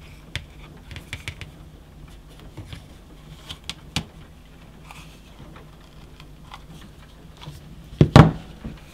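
Stiff galvanized steel wire being bent by hand around a cone mould held in pliers: scattered light clicks and scrapes of wire on the mould and the pliers. About eight seconds in, a loud knock as the pliers are set down on the bench.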